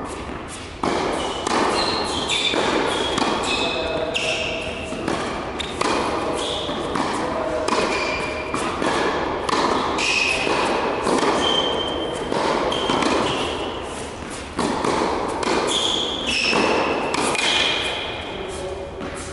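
Tennis rally on an indoor hard court: sharp racket strikes and ball bounces, echoing in a large hall, with short high squeaks of shoes on the court surface.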